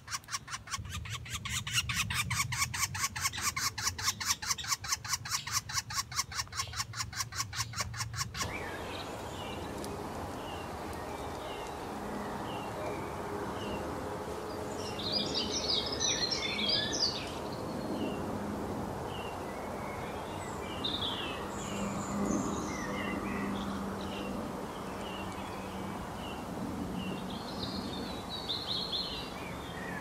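Pileated woodpecker nestlings begging at the nest hole: a fast, even run of repeated calls that stops abruptly about eight seconds in. After it, other birds chirp and trill against a low steady hum.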